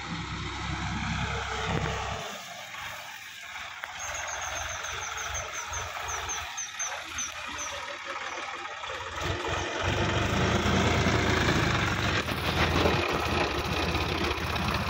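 Sonalika DI-50 RX Supreme tractor's diesel engine running as the tractor drives, faint at first and growing louder and heavier from about ten seconds in as it comes close.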